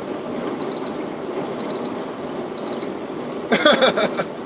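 Steady road and engine noise inside a moving semi-truck cab, with a faint high beep repeating about once a second. A brief louder vocal sound comes near the end.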